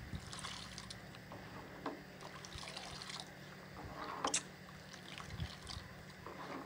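A spoon stirring a liquid rice-bran mash in an enamel pot, with irregular sloshing swishes and light clicks of the spoon against the pot; the loudest swish comes about four seconds in. A low steady hum runs underneath.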